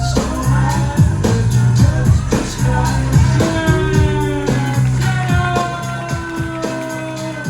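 Background music with a steady beat, a heavy bass line and long held melodic notes; the deepest bass drops away near the end.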